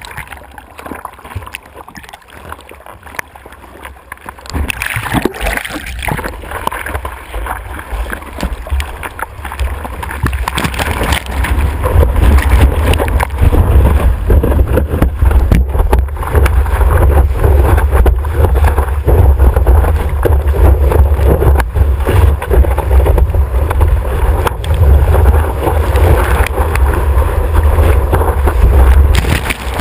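Seawater sloshing and gurgling around a surfboard-mounted action camera while the surfer paddles. About 5 s in it builds into a loud rush of whitewater and spray as he rides a breaking wave, with a heavy low rumble of buffeting on the camera housing from about 12 s on.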